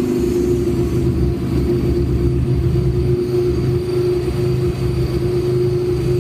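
Car's engine and exhaust running with a steady, unchanging drone.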